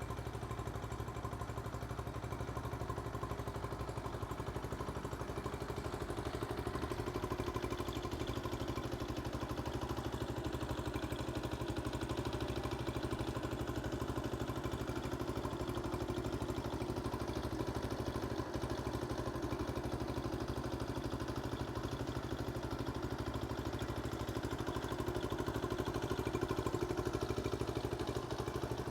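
1970 Honda CT70H's small single-cylinder four-stroke engine running steadily at idle.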